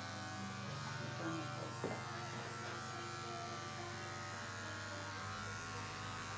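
Electric hair clipper buzzing steadily as it shaves a head down to the scalp.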